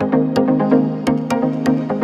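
Background music with a steady beat over sustained chords.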